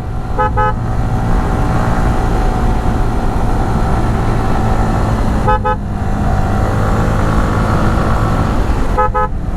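Yamaha R15 V3 155 cc single-cylinder engine running steadily under way, with a horn giving a short double beep about half a second in, again around five and a half seconds, and once more near the end.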